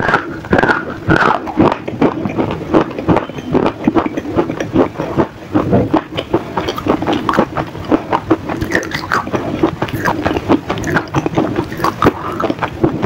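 A person chewing and crunching something hard in the mouth: a long, irregular run of sharp crunches, close to the microphone.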